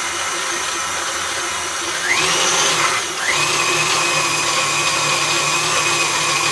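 KitchenAid Classic stand mixer running under load as it mixes a stiff quark dough. About two seconds in, its motor whine rises in pitch, dips briefly, then climbs again and holds at a higher pitch.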